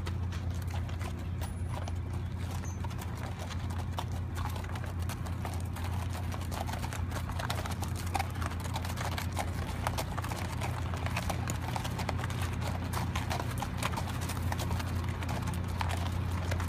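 Several horses walking in a group, their hooves clip-clopping on a paved road in an uneven stream of clicks, over a steady low hum.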